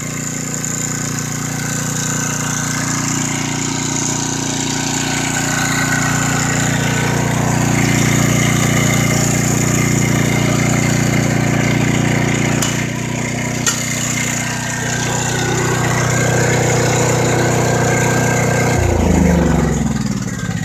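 Portable gasoline generator running steadily while powering a deep-well pump. About two-thirds of the way through, a click comes and the engine note changes as the pump is switched off; near the end the generator is shut off and runs down, its pitch falling.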